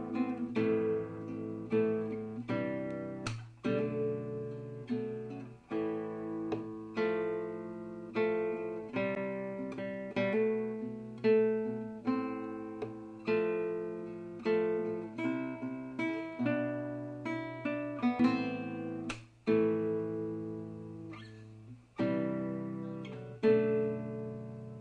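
Background music: an acoustic guitar playing strummed chords at an unhurried pace.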